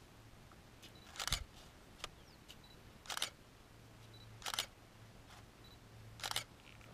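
A DSLR camera's short autofocus beep followed by its shutter firing, repeated four times at intervals of about one and a half to two seconds.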